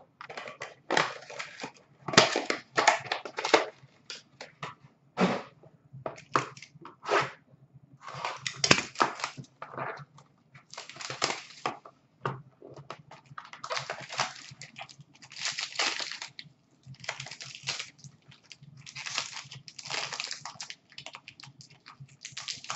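Plastic wrapping and a foil card-pack wrapper crinkling and tearing in irregular rustling bursts as a sealed box of hockey trading cards is unwrapped and opened.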